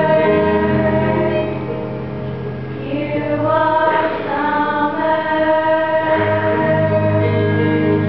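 Female vocal ensemble singing a gospel song in harmony, holding long notes, with a softer passage a couple of seconds in.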